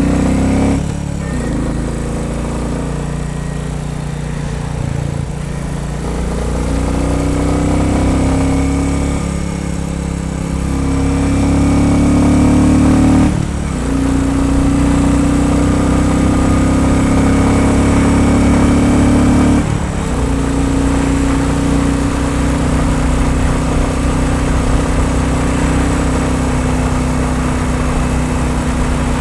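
Royal Enfield Bullet 350 single-cylinder engine running under load. The note swells for a few seconds, then breaks off and settles again about 13 seconds in and again about 20 seconds in.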